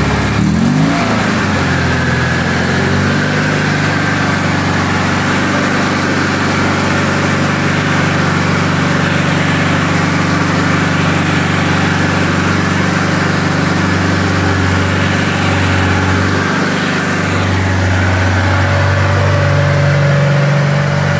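Small air-cooled engine of a homemade hydraulic mini crane running under load while driving its hydraulic pumps to move the machine along. Its revs rise about half a second in, it then runs steadily, and the note shifts near the end.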